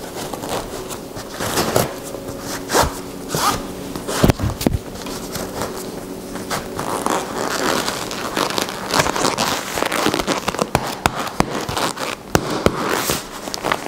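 Laces being pulled tight through the eyelets of a white leather lace-up boxing glove: a run of quick scratchy rasps and rustles of lace and leather, with a few soft knocks in the first half.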